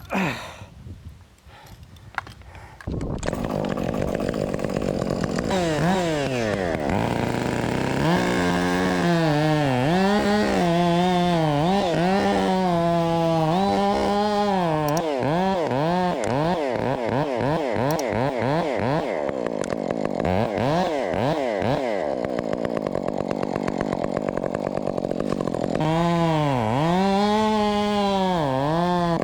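Husqvarna 562XP chainsaw at full throttle, coming in loud about three seconds in, its pitch sagging and recovering again and again as the chain bites into the wood and the engine loads in the cut.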